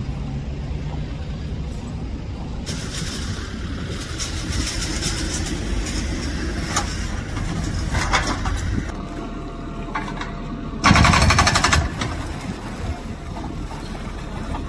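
Construction machinery: a diesel engine running steadily, with intermittent clattering over it and a loud burst of rapid rattling lasting about a second, some eleven seconds in.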